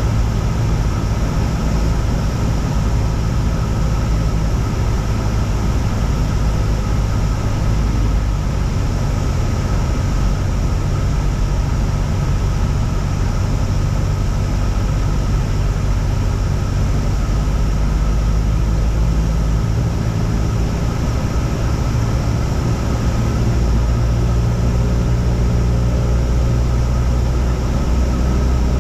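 Cessna 172's four-cylinder piston engine and propeller droning steadily in flight, its low note shifting a few times in the second half.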